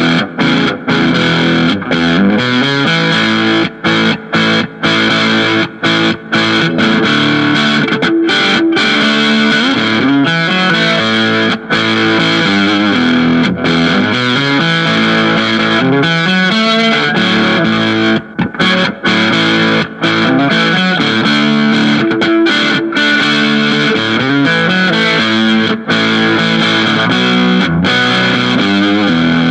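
Distorted electric guitar played loud through amplified speakers: a melodic line of held notes that slide and bend between pitches, with short breaks between phrases.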